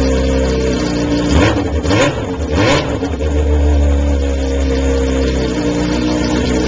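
2005 Yamaha R6's inline-four engine running with no exhaust silencer fitted, an open header, blipped a few times early on and then held at a steady fast idle. The open pipe is a little too loud for the street.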